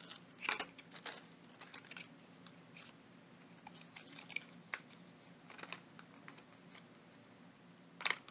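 Faint, scattered clicks, taps and scratches of fingers picking at packing tape on a small cardboard box that won't open. A sharper click comes about half a second in and another near the end.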